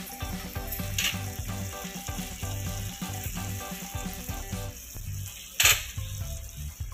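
Dried mackerel fillets shallow-frying in hot oil with green chillies and curry leaves, a steady sizzle with a sharp crackle about a second in and a louder one late on.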